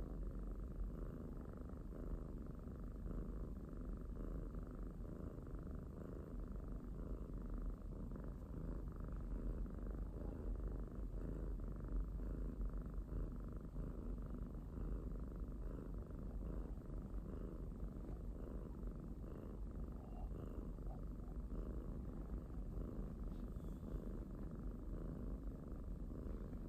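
Kitten purring steadily without a break.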